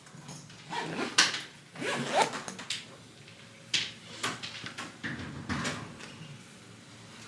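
Handling noises: several sharp clicks and short rustles spread over a few seconds, with a brief rising squeak about two seconds in.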